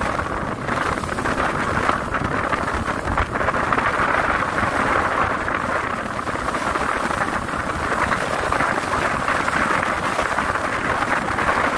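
Steady rush of wind on the microphone as a small fishing boat runs out to sea gathering speed, with its engine and the water along the hull underneath.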